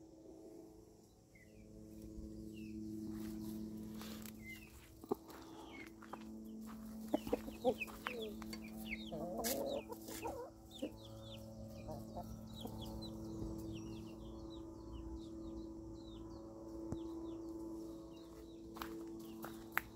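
Domestic hens clucking around someone walking among them, with many short high chirps throughout and a denser burst of calling about nine to ten seconds in. Steady low held tones run underneath.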